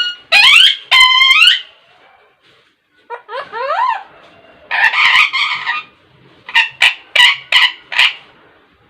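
Pet parakeet calling loudly. Two steep rising screeches are followed by a quick run of rising chirps, then a harsh drawn-out squawk about five seconds in, then five short sharp squawks in quick succession.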